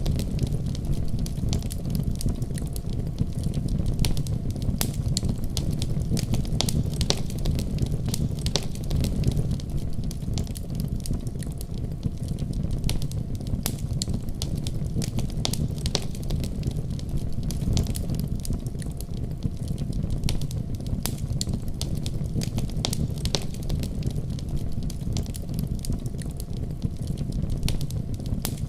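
Firewood burning in a wood-burning stove: frequent irregular crackles and pops from the logs over a steady low rumble of the fire.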